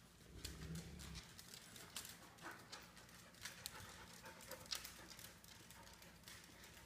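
Faint, irregular clicking of dog toenails on a tile floor as the dogs shift and walk about, with one sharper click late on. A brief low rumble sounds about half a second in.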